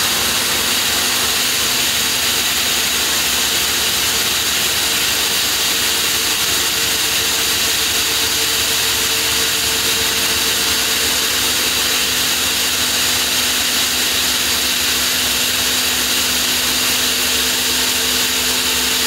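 Large water-cooled diamond circular saw blade cutting through a granite block. It makes a loud, steady grinding noise, strongest in the high range, over a constant motor hum.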